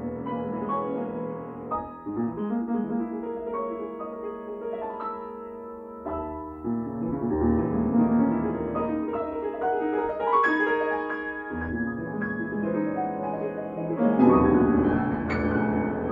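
Grand piano played solo: a flowing passage of many notes, quieter for the first few seconds and louder near the end.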